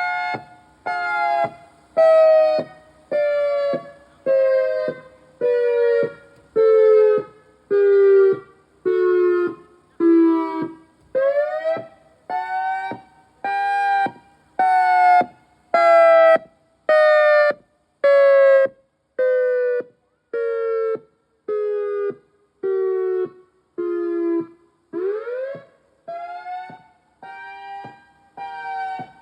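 Federal Signal EOWS 612 electronic outdoor warning siren sounding its alternating wail tone: the pitch falls slowly for about ten seconds, rises quickly, then falls again, twice in all. The sound comes in pulses about once a second.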